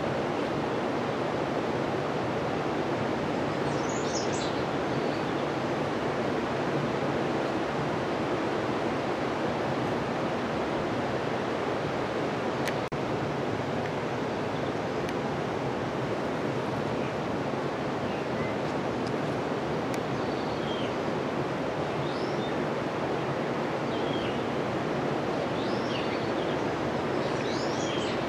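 Steady, unbroken outdoor rushing noise, with a few short high chirps scattered through it, most of them in the second half.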